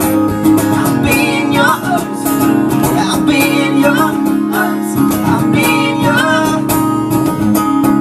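Acoustic guitar strummed under singing, the voice drawing out long notes that bend up and down in pitch.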